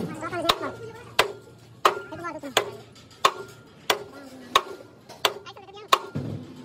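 Sledgehammer blows on metal, struck at a steady pace about once every two-thirds of a second, about nine in all.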